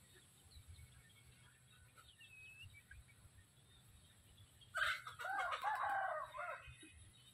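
A rooster crowing once, one loud call of several linked rising-and-falling notes lasting about two seconds, starting about five seconds in. A faint high bird chirp comes earlier, about two seconds in.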